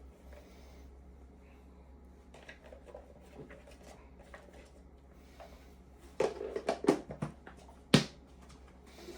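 Kitchen handling sounds: a faint low hum for about six seconds, then a quick run of clicks and taps and one sharp click near the end, as chopped bell peppers are added to a salad.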